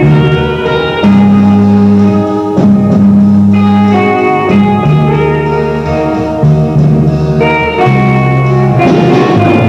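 Instrumental music led by guitar over held bass notes that change about every second, with no singing.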